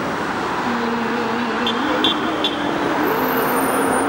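Steady traffic noise from cars passing on a city street, with long held tones that shift in pitch every second or so and a few short high clicks about two seconds in.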